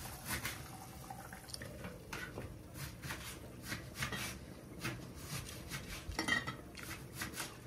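Clinking of a glass pan lid and an enamel pot lid on the stove, with a scatter of soft pops and clicks from the tomato sauce simmering in the frying pan. A sharper, ringing clink comes about six seconds in.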